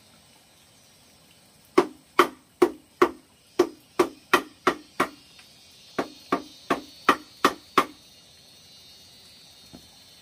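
Rapid knocking on a hollow bamboo bed frame, about fifteen sharp blows in two runs, each with a short hollow ring.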